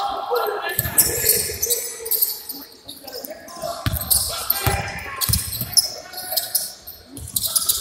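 A basketball is dribbled on the court floor during play, with irregular thuds of the ball echoing in a large arena.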